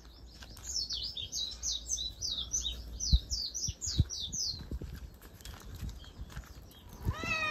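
A bird calling with a quick run of high, falling chirps, about four a second, which stop about four and a half seconds in. A few soft knocks follow, and a cat meows near the end.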